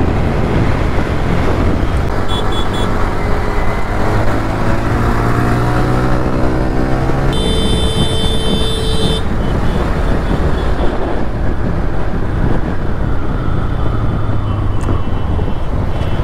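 Riding a TVS Raider 125 single-cylinder motorcycle in traffic: steady wind rush and engine running, with the engine note rising as the bike accelerates a few seconds in. A vehicle horn sounds for about two seconds near the middle, and a brief high beeping comes early.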